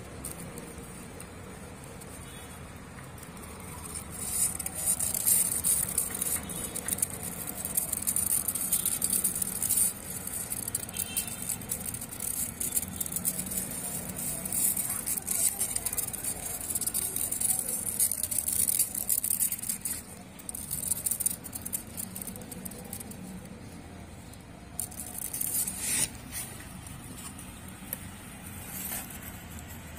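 Rustling and crackling in a cardboard box of hamster bedding of wood pellets, newspaper and dry grass, with many small scratchy clicks. It grows loud about four seconds in, eases after about twenty seconds, and has a shorter burst near the end.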